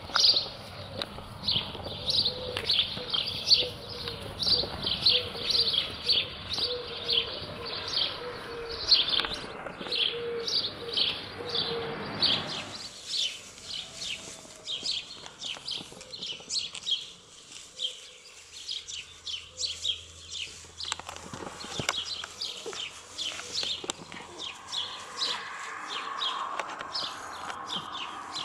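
Small birds chirping steadily in quick high chirps, several a second. The background hiss under them drops away about twelve seconds in.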